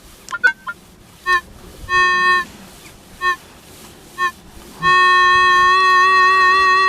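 Minelab CTX 3030 metal detector giving its target tone: several short beeps as the coil sweeps over a target, then one long steady tone from about five seconds in. The detectorist judges the signal a bit iffy and takes it for a possible hammered coin.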